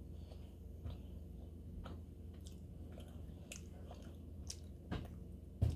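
A person chewing pizza close to the microphone: soft wet mouth sounds and small clicks, with a louder thump near the end.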